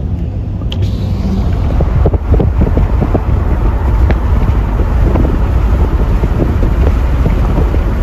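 Wind buffeting the microphone: a loud, low rumble that flickers in level throughout.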